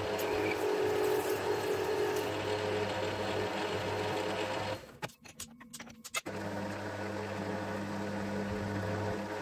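Metal lathe running steadily, turning a small screw blank under flood coolant, with a constant motor hum. The sound drops out briefly about five seconds in, with a few clicks, then the same running resumes.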